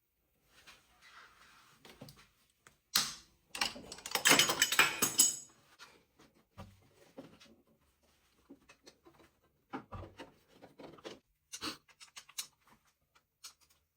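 Hand tools and metal engine parts being handled during cylinder head removal: scattered clicks and knocks, with a louder stretch of dense clattering about three to five seconds in.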